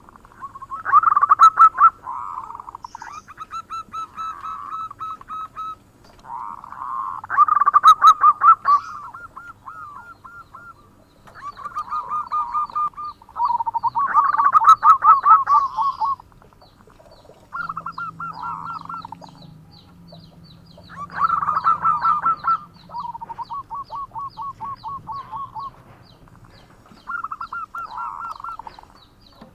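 Zebra dove (perkutut) cooing: about seven phrases of rapid staccato coo notes, each a couple of seconds long, repeated with short pauses between.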